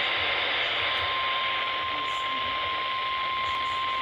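Radio receiver static hiss, with a single steady tone starting about a second in and holding: the NOAA Weather Radio 1050 Hz warning alarm tone, which signals that a warning broadcast is about to follow.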